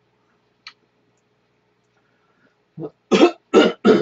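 A person coughing: three short, loud coughs close together near the end, after a nearly quiet stretch broken only by a faint click.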